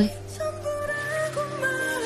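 Slow background music: a held melody line over long, steady low bass notes.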